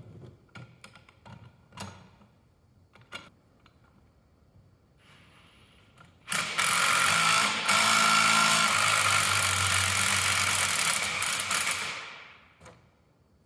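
A few scattered metal clinks and knocks, then about six seconds in a power tool, most likely an impact wrench, runs steadily for about six seconds. It is driving a puller's screw to draw a final drive bearing off its shaft.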